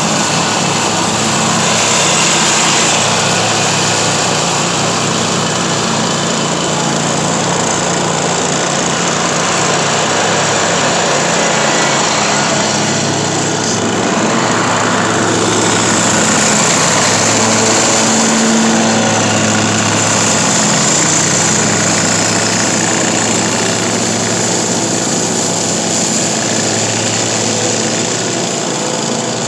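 Riding lawn mower running steadily under load as it chops fallen leaves, its engine hum and blade hiss swelling a little as it moves about.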